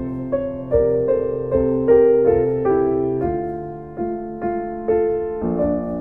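Slow, gentle solo piano music, with notes and chords struck about twice a second, each ringing and fading.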